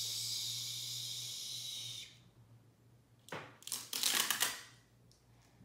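A woman's long "shhh", hissed as the sound of a dump truck unloading, lasting about two seconds. About three and a half seconds in comes a brief crinkling, tearing rustle as a truck picture is peeled off the wall.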